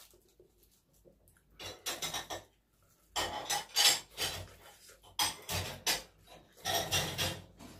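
Eating utensils clinking and scraping against dishes in four short bursts of clatter.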